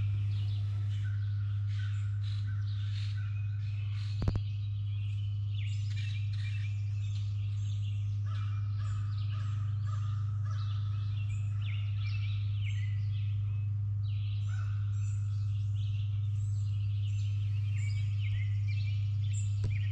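Many birds calling over and over, with a steady low hum underneath.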